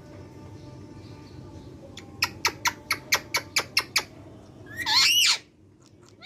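Ringneck parakeet making a rapid run of about nine sharp clicks, roughly five a second, then one loud squawk with a wavering pitch about five seconds in.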